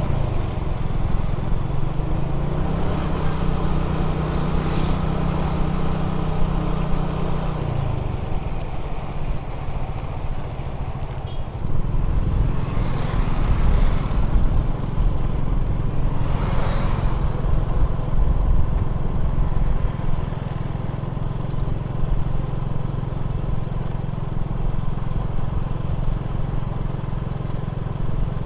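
Motorcycle engine running at road speed under a steady rush of road noise. The engine note rises slightly about two seconds in, falls away near eight seconds, and settles into a steady lower note from about twelve seconds. Two brief swells of rushing noise come near the middle.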